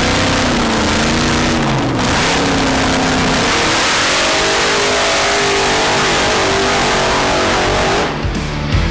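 Supercharged drag-racing doorslammer engine held at high revs on the start line, then launching about three seconds in and pulling away at full throttle, its note climbing steadily as it accelerates down the strip. The sound cuts to rock music near the end.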